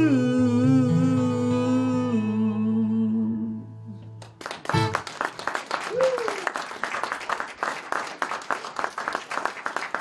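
The song's final chord rings out on acoustic guitar with a held, wavering note above it and dies away about four seconds in. Then the small audience applauds, and a voice calls out briefly about six seconds in.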